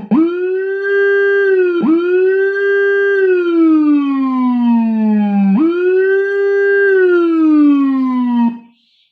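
Locally made Whelen HHS-style 24-tone electronic siren module sounding a low-pitched wail through its amplifier and speaker. The tone sweeps up quickly, holds, then glides slowly down, three times over, and cuts off suddenly near the end.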